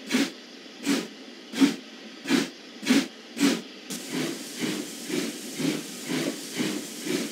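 Steam locomotive puffing as it pulls a train away: strong chuffs under a second apart at first, then from about four seconds in a quicker, lighter beat over a steady hiss as it gathers speed.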